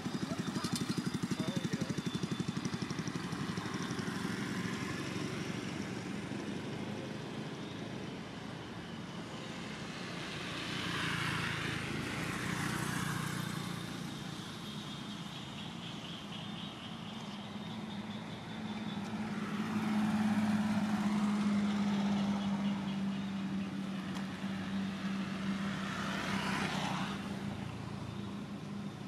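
Road traffic going by: several vehicles pass one after another, each swelling and fading, the loudest pass about two-thirds of the way through with a steady engine drone.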